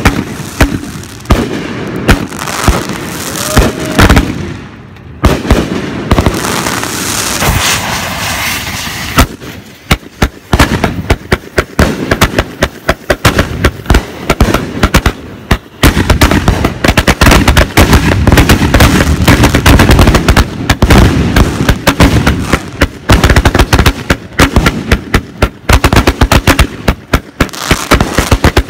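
Fireworks going off at close range: separate loud bangs of bursting shells, then, about ten seconds in, a dense rapid barrage of bangs and crackles that keeps up.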